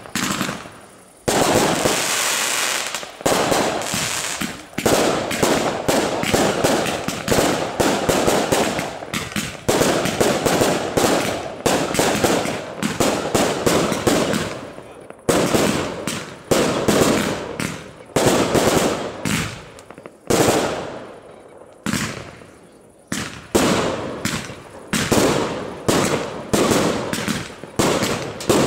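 Aerial fireworks shells fired in rapid succession, a continuous run of bangs that each echo and die away over about a second, crowding into dense volleys with only brief lulls.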